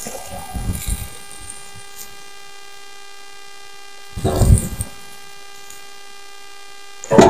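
Steady electrical hum with a ladder of whining overtones from a cheap wireless microphone, under the handling of a portable propane grill: a few soft knocks at the start, a dull thump about four seconds in and a sharp clatter near the end.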